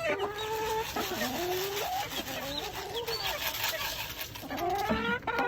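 Several hens clucking and calling over one another, with some drawn-out, wavering calls.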